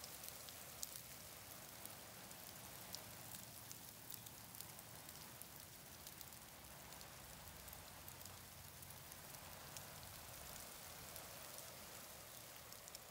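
Faint outdoor ambience: a steady hiss with scattered small ticks.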